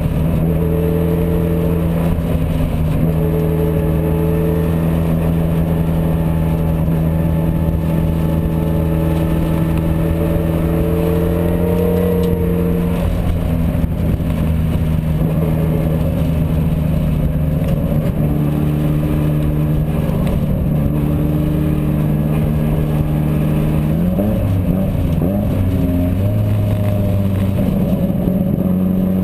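GT2 race car's engine running hard on track, heard from an onboard camera with wind and road noise. Its pitch holds steady for the first half, breaks up a little past halfway, settles again, then changes once more near the end as the car shifts for a corner.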